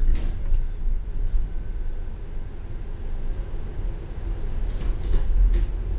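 Double-decker bus in motion, heard from inside the passenger cabin: a steady low engine and road rumble, with a few brief rattles.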